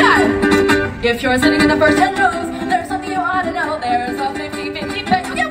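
Music with a singing voice over held instrumental notes.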